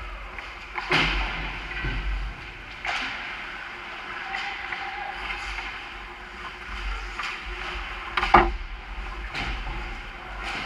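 Ice hockey play around the net: skate blades scraping the ice and several sharp knocks of sticks and puck, the loudest about eight seconds in.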